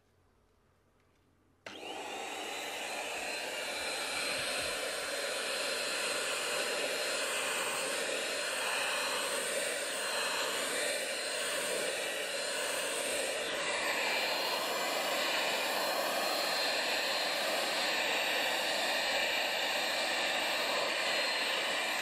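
Household vacuum cleaner switched on about two seconds in and running steadily, with a thin high whine over its rushing noise.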